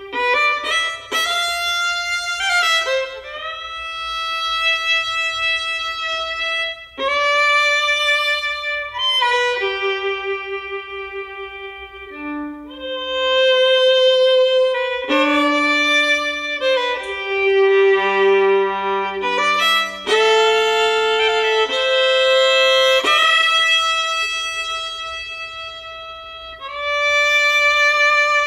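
Bluegrass instrumental music led by a fiddle playing a slow melody of long held notes, sliding between some of them.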